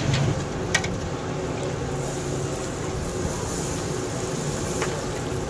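Khakhar pura batter frying in a wide karahi of hot oil, sizzling steadily, with a few light clicks.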